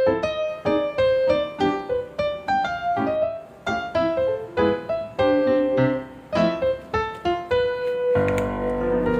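Background music: a light piano melody of quick, separate notes. Near the end it gives way to a held, ringing chord.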